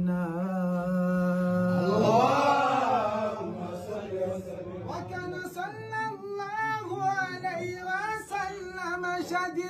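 Unaccompanied Mawlid devotional chanting by a man's voice: a long held note, a rising and falling swell about two seconds in, then quicker ornamented melodic runs from about five seconds, over a steady low sustained tone.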